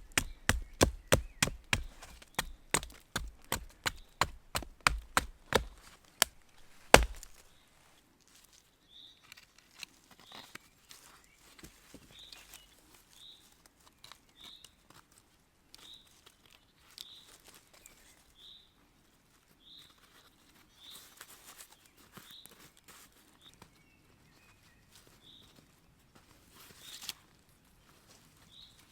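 Wood being struck with a wooden baton or mallet: quick, even knocks about three a second, then one heavy blow about seven seconds in. After that it is quieter, with short high chirps repeating every second or so.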